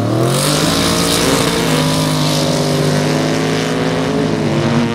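The twin-turbo 540 cubic inch big-block Chevy V8 of a sand truck revs up over about a second, then holds at high, steady revs under full throttle, with a strong hiss over the engine note.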